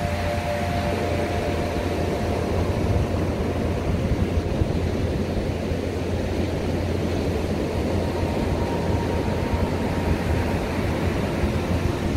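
Heavy ocean surf breaking on a sandy beach: a continuous wash of surf noise with a deep, steady rumble underneath.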